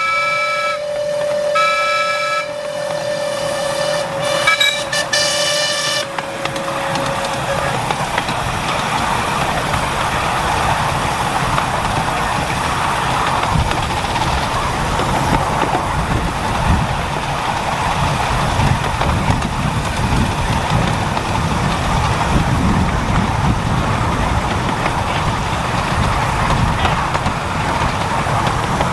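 Miniature railway locomotive whistles: one long steady whistle with several short higher blasts sounding over it during the first six seconds or so. Then the steady rumbling noise of the train running along the track.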